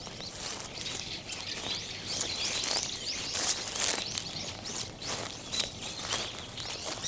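Footsteps crunching through dry fallen autumn leaves in quick, irregular crackles, with small birds giving short chirps now and then.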